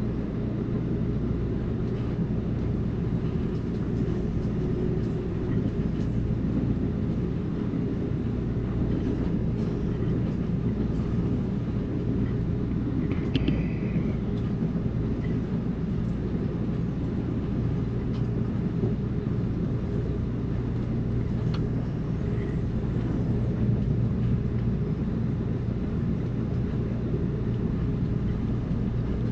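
Amtrak Cascades passenger train in motion: a steady low rumble of the train rolling along the track, with a few faint irregular clicks and a brief high squeal about 13 seconds in.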